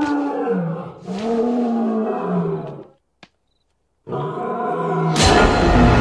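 A tiger roaring: two long roars, each falling in pitch, then a third about four seconds in, with eerie music coming in over it about a second later.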